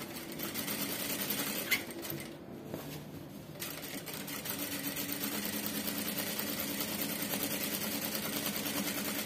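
Industrial straight-stitch sewing machine stitching steadily, sewing bias tape onto fabric. It eases off briefly about two seconds in, then picks up again and runs on at an even pace.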